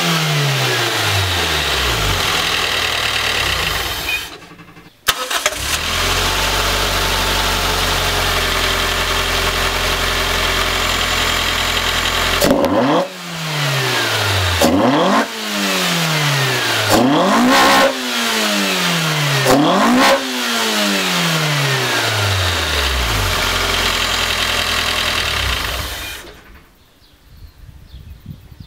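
Toyota 4A-GE 20-valve Blacktop 1.6-litre inline-four breathing through open 110 mm velocity stacks with no air filter. It falls back from a rev to a steady idle. Several sharp throttle blips follow, about two seconds apart, each rising quickly and sliding back down to idle, and the engine sound cuts off near the end.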